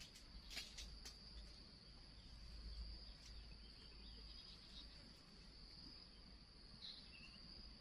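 Near silence with a faint, steady, high-pitched insect chorus of crickets or similar insects. A few soft clicks or rustles come about half a second and a second in.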